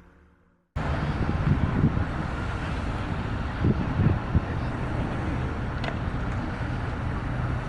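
Outdoor street ambience: steady traffic noise with wind on the microphone and a few low bumps. It starts abruptly after a moment of silence.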